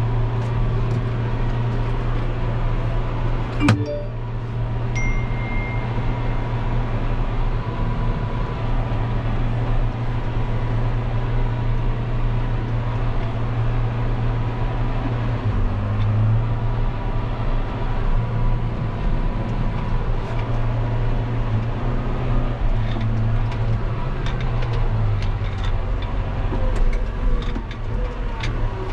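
John Deere 6140M tractor's four-cylinder diesel engine running steadily under load while pulling a field cultivator, heard from inside the cab, with a thin steady whine over the engine drone. A single click about four seconds in and a brief high beep just after; the engine note shifts slightly a few times in the second half.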